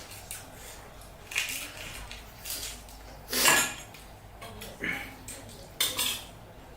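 Short, separate clinks and clatters of dishes and cutlery while eating pani puri, about six in all, the loudest about three and a half seconds in.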